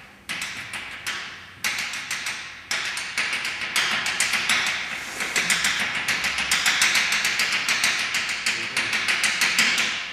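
Chalk tapping rapidly against a blackboard as dots are struck onto it, several sharp taps a second, coming faster after about four seconds.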